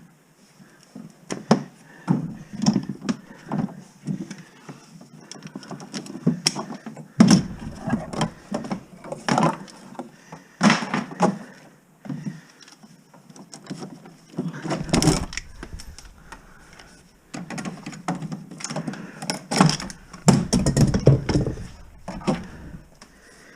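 Irregular knocks, thuds and metallic clatter of armored BX cable being pulled out and handled by hand, with heavier thumps now and then.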